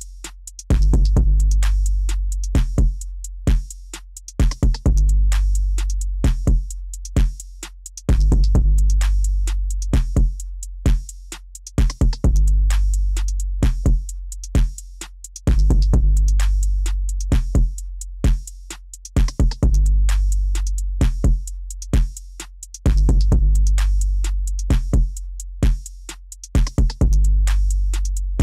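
Electronic music with no vocals: a drum-machine beat with a deep bass note struck about every four seconds and slowly fading, and clusters of sharp clicking hits between.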